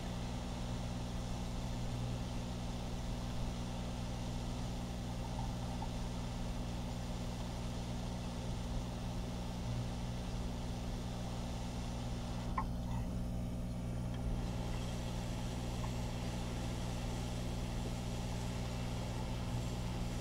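Steady hiss of a hot air rework station blowing hot air onto a circuit board to reflow solder paste, over a low electrical hum; the hiss thins briefly about two-thirds of the way through.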